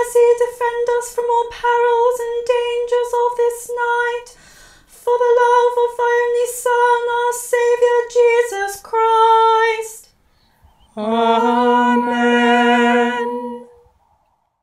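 A female solo voice chants a prayer unaccompanied on one reciting note, syllable by syllable, falling to a cadence about nine seconds in. After a short pause, several voices sing a held 'Amen' in harmony.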